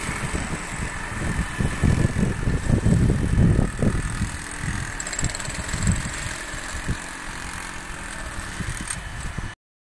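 Wind buffeting a phone's microphone in irregular low gusts over a steady rushing background, strongest in the first few seconds, cutting off suddenly near the end.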